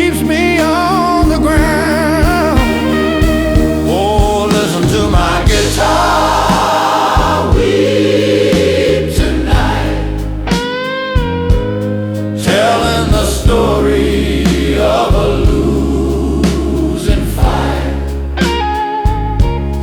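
Slow electric blues: a lead electric guitar solo full of string bends and wide vibrato over bass and a steady drum beat, with choir-like wordless backing vocals.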